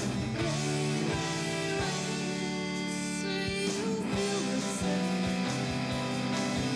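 A rock band playing live: a woman sings over electric guitar, with drums keeping the beat. A long held note runs through the middle.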